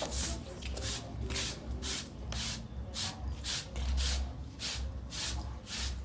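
Repeated short hissing strokes, like brushing or scrubbing, about three a second and slightly irregular, over a low steady hum.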